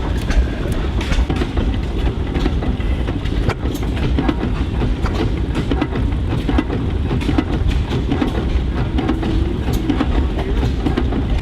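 Antique machinery running, with a dense, rapid clatter of knocks over a steady low rumble.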